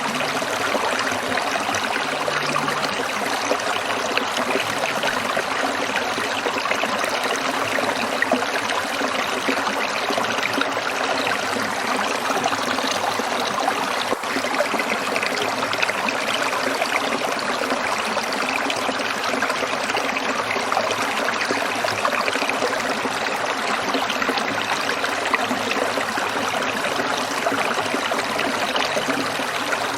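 Stream water trickling and splashing over stones in a steady, unbroken flow.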